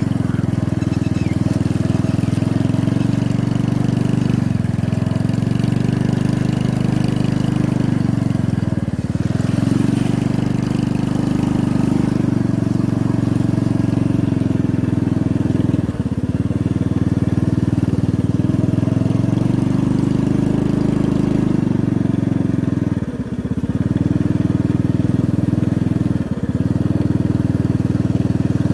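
Small motorcycle engine running steadily at low speed along a dirt track, easing off briefly four times.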